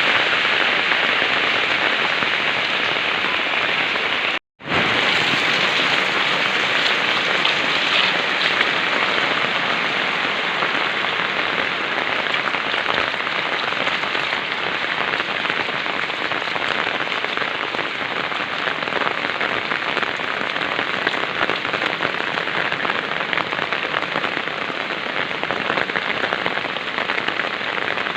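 Heavy rain falling steadily, an even downpour hiss that cuts out for a split second about four and a half seconds in.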